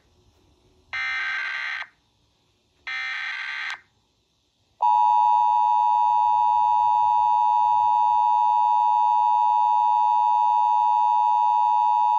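Emergency Alert System flash flood warning played through a television: the last two bursts of the digital SAME header, each a harsh buzzing screech about a second long, then, about five seconds in, the steady two-tone EAS attention signal begins.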